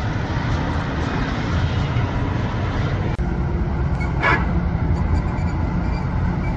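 Large coach's diesel engine running nearby with a steady low rumble, and a short hiss about four seconds in.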